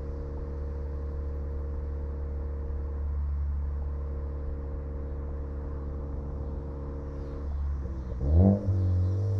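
Turbocharged 2014 Ford Focus ST with a catless downpipe and Cobb cat-back exhaust, running at a steady drone. Near the end the pitch climbs quickly in a short rev, the loudest moment, then settles on a higher steady note.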